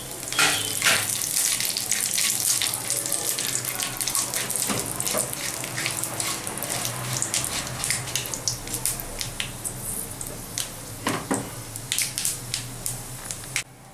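Panch phoron seeds and bay leaves sizzling in hot oil in a wok, the seeds crackling and popping as a spatula stirs them. The crackling is the sign that the seeds have spluttered and the tempering is ready.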